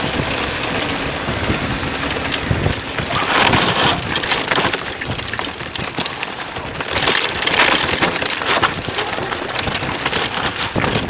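Mountain bike tyres crunching over dirt and loose gravel, with many small clicks and rattles from the bike and louder gusts of wind on the microphone around three and seven seconds in.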